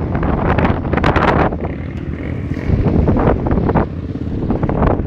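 Sport quad (ATV) engine running loud and surging up and down, with wind rumbling across the microphone.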